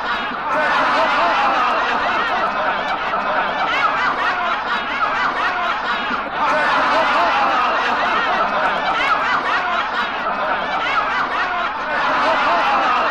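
A large crowd laughing together, many voices at once. The laughter dips briefly about six seconds in, then picks up again.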